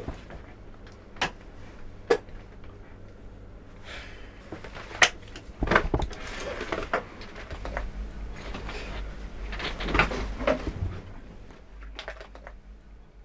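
Scattered light knocks, clicks and rustles of objects being handled. The sharpest knocks come about five seconds in and about ten seconds in, over a low steady hum.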